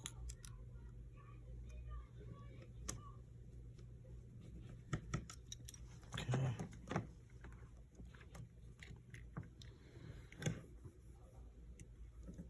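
Scattered small clicks and taps from handling a phone and small repair parts on a work surface, with a louder cluster about six seconds in and another near ten seconds, over a steady low hum.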